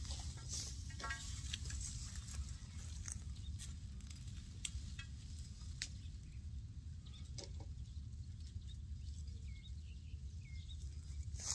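Green plastic netting rustling and ticking as it is lifted and hung on its support poles, over a steady low rumble. A few short bird calls come through, one about a second in and small chirps near the end.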